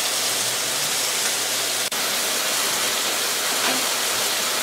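Skinless chicken breasts and Brussels sprouts sizzling steadily in a sauté pan, an even frying hiss, with a momentary break about two seconds in.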